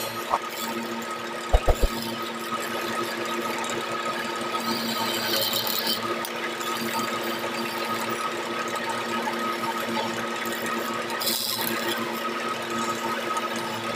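Wood lathe running with a steady motor hum as it turns a gamari-wood spindle. Three quick knocks come just under two seconds in, and short hissing bursts come about five and eleven seconds in.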